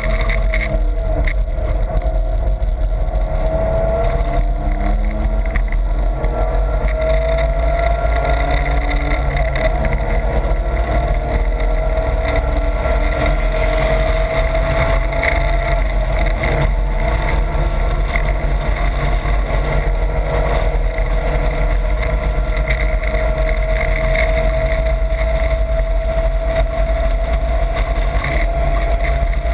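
Car engine under load, heard from inside the cabin at track speed over steady wind and road noise. Its pitch climbs slowly for long stretches and drops back once about ten seconds in.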